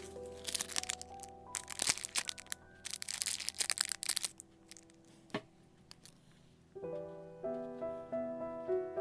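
Background music with a run of crinkling, crackling noises through the first four seconds or so, then a single click; the music grows fuller near the end.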